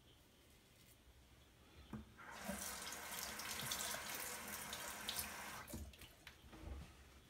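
Water running from a bathroom sink tap, turned on about two seconds in and shut off a few seconds later, with a few low knocks after it stops.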